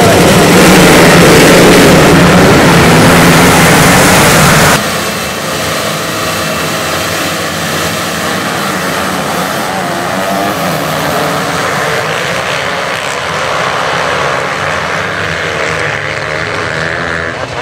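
A full field of motocross bikes revving their engines together at the start gate. About five seconds in, the sound drops suddenly and carries on as the pack of bikes racing away.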